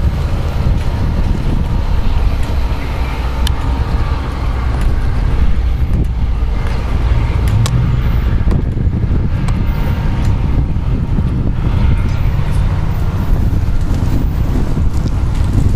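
NJ Transit Arrow III electric multiple-unit train pulling away from the station, a steady low rumble of motors and wheels on rail, with a few sharp clicks.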